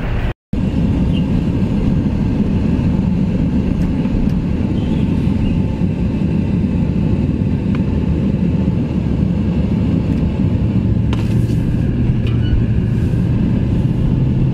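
Vehicle cabin noise while driving: a steady low engine and road rumble heard from inside the cab, with a steady low engine hum coming in about ten seconds in.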